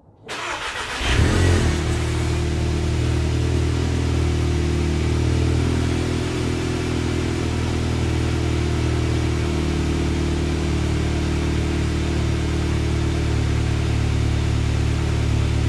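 Stock exhaust of a VW Mk7 Golf GTI's 2.0-litre turbo four-cylinder on a cold start. The starter turns briefly and the engine catches about a second in with a short flare, then settles into a steady cold idle.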